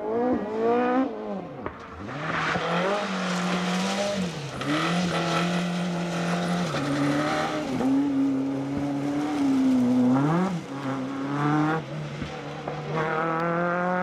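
Renault Clio rally car's engine at high revs as it drives past on a dirt stage, its pitch rising and dropping several times with gear changes and lifts off the throttle.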